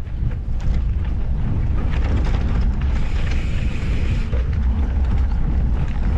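Wind buffeting the microphone over a steady low rumble of off-road handcycle tyres rolling on a dirt trail, with a brighter hiss joining about halfway through.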